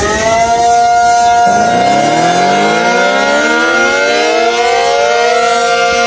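Two outdoor tornado warning sirens. The first finishes winding up and holds a steady multi-tone wail. About a second and a half in, a second one, a Whitefish Bay Allertor siren, starts winding up from a low pitch and rises slowly until it levels off near the end, sounding together with the first.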